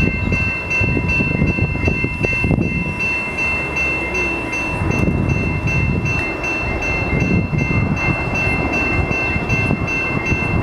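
Level-crossing bell ringing at about two strokes a second with a steady ringing tone, over the low rumble of a Bombardier MR-90 electric multiple unit moving slowly toward the crossing.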